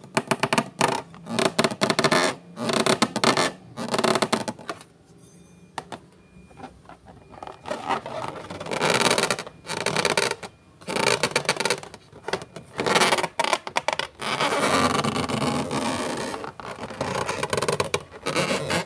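Slime being worked by hand and tool: irregular scraping and rubbing strokes, with a quieter pause about five seconds in and a longer, continuous stretch of scraping in the second half.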